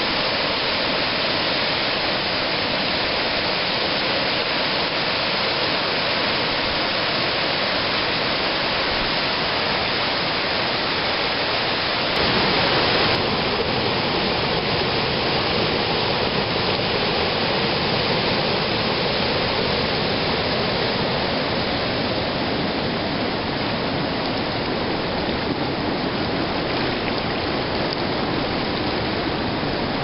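Whitewater river rapids rushing steadily over rocks, with a brief louder surge about twelve seconds in.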